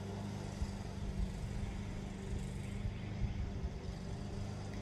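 Steady low mechanical hum over a faint even hiss of outdoor background noise, with a few soft low bumps.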